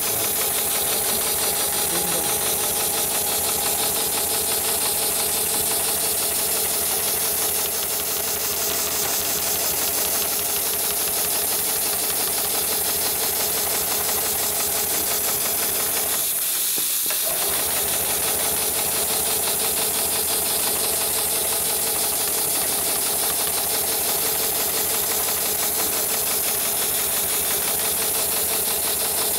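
Heavy-duty automated CNC sole-stitching machine (HighTex 7273CNC-S2S) running continuously: a fast, even stitching rhythm under a loud hiss. The lower part of the sound briefly thins out a little past halfway.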